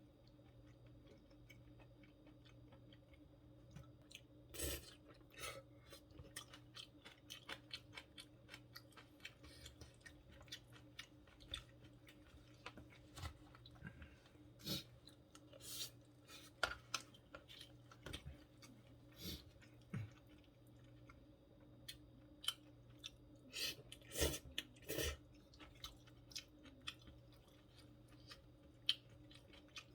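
Close-miked chewing of food, irregular wet smacks and clicks of the mouth, with clusters of louder ones about five seconds in and near twenty-four seconds, over a faint steady hum.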